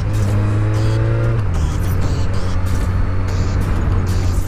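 Motorcycle engine pulling under acceleration: its pitch climbs, drops sharply at an upshift about a second and a half in, then runs steadily.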